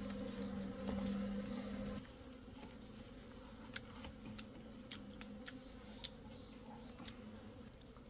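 Honeybees buzzing in a steady hum that drops sharply about two seconds in, leaving a fainter hum with scattered light clicks.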